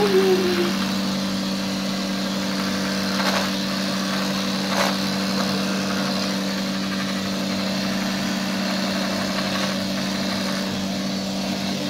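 Electric hair clippers running with a steady, even buzz as they shave a cat's long fur, with two brief sharp sounds about three and five seconds in.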